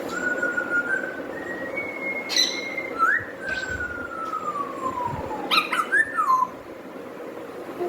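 Parrot whistling clear notes: a held note that steps up in pitch, then a long slow falling glide, and a shorter falling note near the end, with a few sharp clicks in between.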